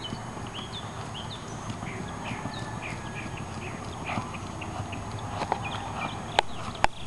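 Faint, quick hoofbeats of a Tennessee Walking Horse gaiting on grass, with short high chirps over them and two sharp clicks near the end.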